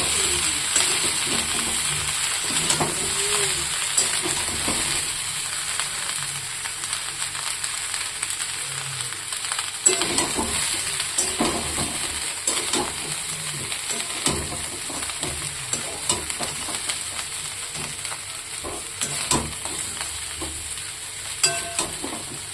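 Food sizzling in a frying pan, a steady crackling hiss with scattered clicks and scrapes as it is stirred, slowly getting quieter.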